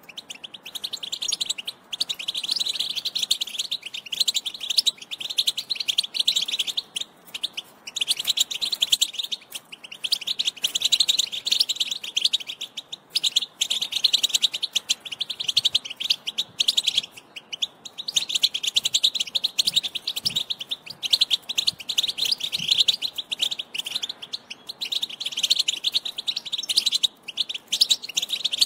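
European goldfinch singing: long phrases of fast, high twittering notes, broken by short pauses every few seconds.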